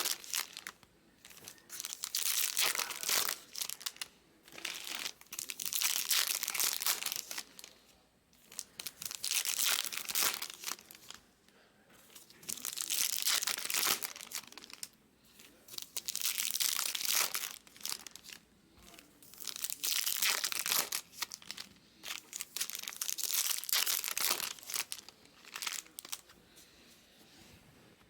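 Plastic packaging crinkling and tearing in repeated bursts of a second or two each, several seconds apart, as a new case of sealed trading-card boxes and packs is unwrapped; the bursts stop near the end.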